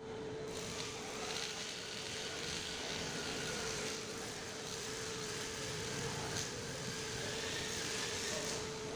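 A steady hum under a broad rushing noise that comes in about half a second in and swells and eases, with a faint click or two.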